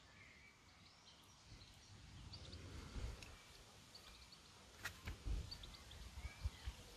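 Quiet outdoor ambience with faint, brief bird chirps, low rumbling that swells about halfway through, and a single sharp click about five seconds in.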